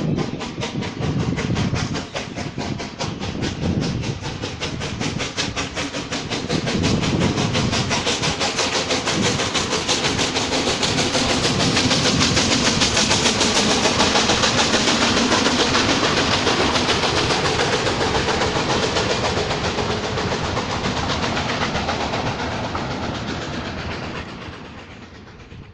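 Class 475.1 steam locomotive 475.111 passing close with its train of coaches: steam exhaust and wheels on the rails make a fast, even clatter. It grows louder as the engine and coaches go by, then fades away near the end.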